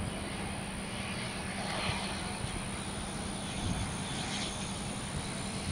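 Dassault Falcon 50EX business jet on landing approach, its three turbofan engines giving a steady engine noise.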